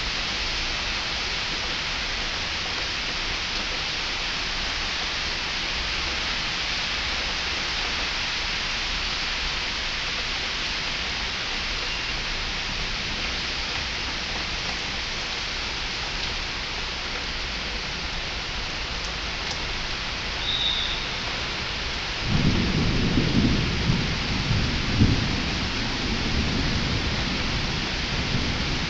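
Heavy tropical downpour with a steady hiss of rain. About three quarters of the way through, thunder breaks in suddenly as a low rumble that rolls on for several seconds.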